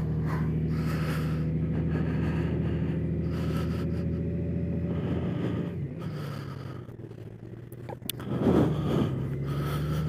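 A 2019 Honda Gold Wing Tour DCT's flat-six engine running at low road speed, a steady low hum. About six seconds in it drops in pitch and goes quieter for a couple of seconds, then picks up again.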